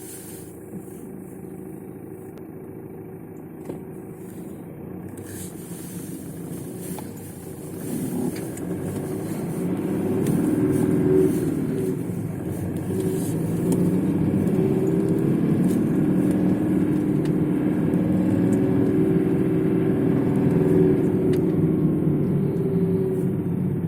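Mitsubishi Pajero Sport's 3.2-litre 4M41 four-cylinder turbodiesel running, with a knock that the owner puts down to the fuel injectors. The engine grows much louder about eight seconds in, then holds steady.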